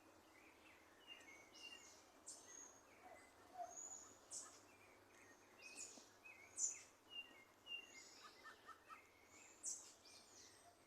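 Small birds singing, faint: many short high chirps and whistled notes from more than one bird, scattered irregularly over a soft background hiss.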